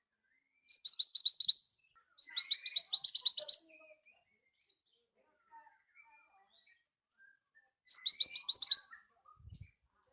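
Sepah raja (minivet) singing: three quick trills of rapid, high, repeated notes, about eight a second, the middle one the longest, with faint soft chirps between them.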